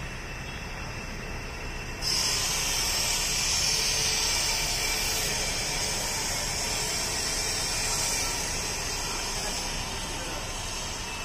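A loud steady hiss starts abruptly about two seconds in over steady background noise, holds for several seconds, then slowly eases off.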